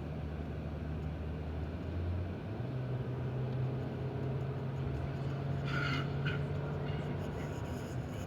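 Stomach rumbling: a low, drawn-out growl that steps up in pitch about two seconds in and holds steady, with two short, higher sounds about six seconds in.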